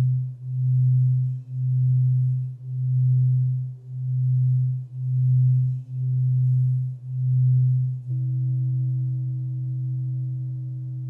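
Alchemy crystal singing bowl sounding a deep, pure low tone that swells and fades about once a second, then holds steady about eight seconds in as fainter higher overtones join.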